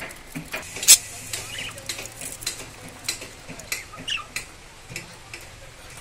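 Pet budgerigar making a quick, irregular run of small clicks and scratchy noises with a few short high chirps; one sharp click about a second in is the loudest.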